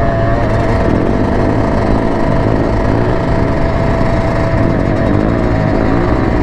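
Yamaha YZ125 two-stroke dirt bike engine running steadily at riding speed, heard from on the bike with wind rushing over the microphone.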